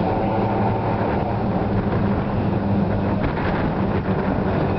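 Steady electrical hum of a substation, a constant low drone, mixed with the running noise of a 1931 Liverpool electric tram moving off along its street track.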